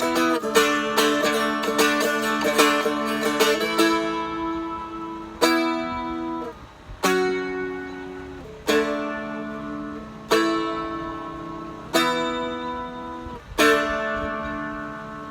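Seagull Merlin, a four-string stick dulcimer, played solo. It is strummed quickly for the first few seconds, then single chords are struck about every second and a half and left to ring out over the steady drone strings.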